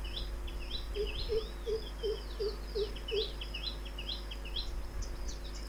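Small birds chirping in rapid, repeated high notes, with a lower call repeated about three times a second for a couple of seconds, about a second in.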